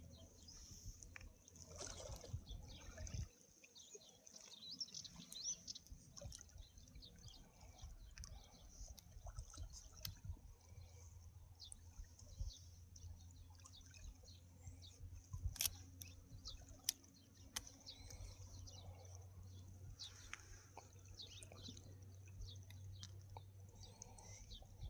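Faint outdoor morning ambience: small birds chirping in scattered short calls throughout, with occasional sharp clicks or drips and a low steady hum underneath.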